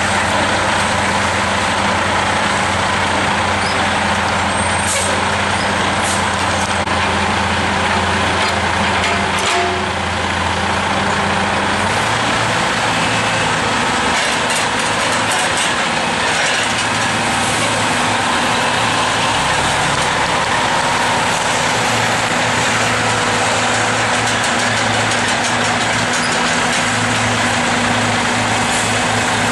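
Logging truck's diesel engine running steadily with heavy road and mechanical noise; the engine note changes about twelve seconds in. A couple of short hissing sounds about five seconds in.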